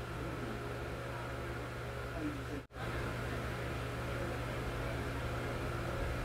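Room tone: a steady low hum with a faint hiss, cut by a split-second dropout about two and a half seconds in.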